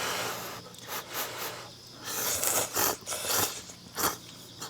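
A person slurping konjac noodles from a bowl of spicy karamen: a series of irregular slurps of varied length.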